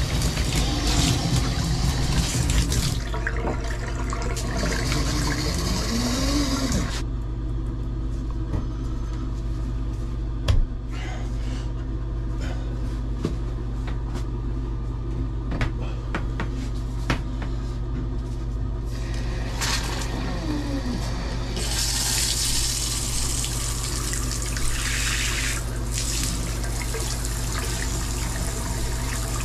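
Water gushing from an open copper tub-spout stub-out and splashing into the bathtub. It eases off about three seconds in and stops about seven seconds in. A steady low hum runs underneath, and a second spell of rushing water comes about twenty seconds in.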